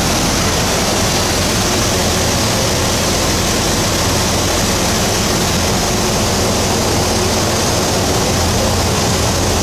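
Supercharged 6.2 L V8 in a 2010 Camaro SS idling steadily, a low even hum under a loud, constant rushing noise.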